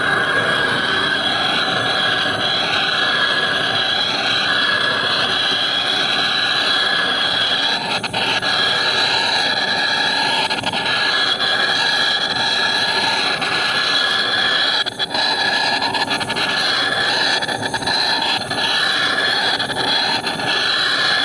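Heat gun blowing steadily, a rushing of air under a high whine, heating a hub so that a bearing race can be fitted.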